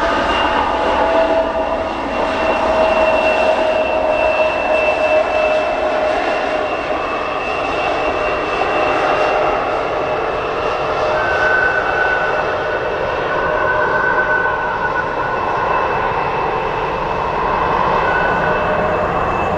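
Embraer E175 regional jet's turbofan engines running with a steady whine, the pitch sinking slightly. A second, higher whine comes and goes in the second half.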